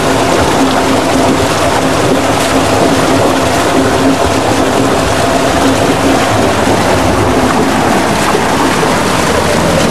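Water pouring over a concrete canal weir and churning in the pool below: a loud, steady rushing, with a faint low hum underneath.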